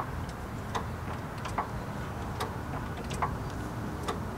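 Hydraulic floor jack being pumped by its long handle to raise the car, a sharp click at each stroke, about one every 0.8 s.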